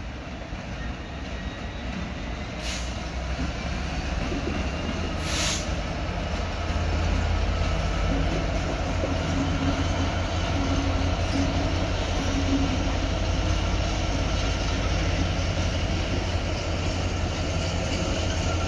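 Two Class 66 diesel-electric locomotives, each with an EMD two-stroke V12, hauling a freight train past. Their deep engine drone grows louder over the first several seconds as they draw near, then holds steady with the rolling wagons. Two brief high-pitched sounds come about three and five seconds in.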